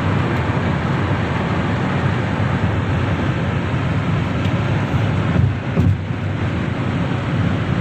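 Steady road and wind noise of a moving vehicle, an even rush without distinct events.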